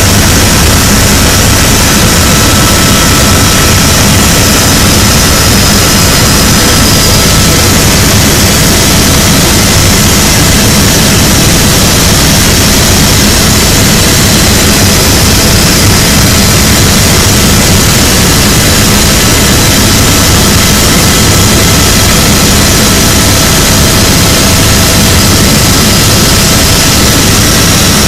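Helicopter in flight heard from inside the cabin: loud, steady engine and rotor noise with a thin, constant whine above it.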